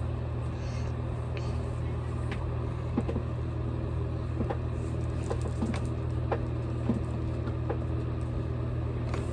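A steady low hum fills the room, with faint light clicks and rustles of small things being handled.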